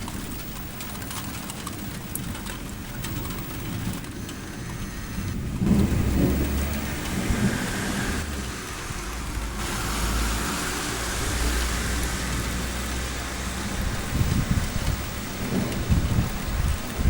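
Steady rain falling during a thunderstorm, with thunder rumbling about six seconds in for several seconds and again near the end.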